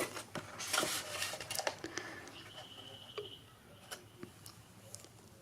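Paper handling: a folded brochure and cardstock rustling and tapping as they are moved, busiest in the first two seconds, with a short high squeak about midway and a few faint ticks after.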